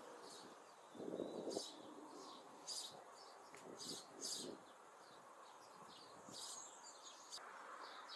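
Faint garden ambience with small birds chirping on and off, and a few short knocks, the loudest about a second in.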